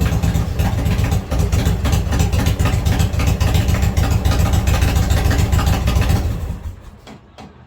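1995 Harley-Davidson Road King's Evolution V-twin running, a loud low pulsing exhaust note, then shut off about six and a half seconds in. A few faint clicks follow.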